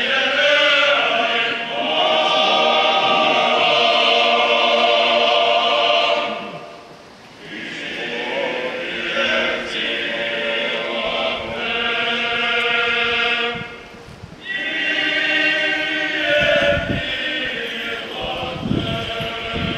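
Orthodox church choir chanting a liturgical hymn, several voices in long held phrases that break off briefly about seven and fourteen seconds in.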